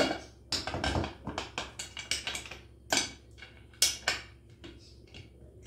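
Afghan kazan pressure pot being closed: its metal lid clanks onto the rim and the clamp is worked, giving a series of metal clicks and knocks. There is a quick run of ticks about a second in and a few sharper knocks around three and four seconds.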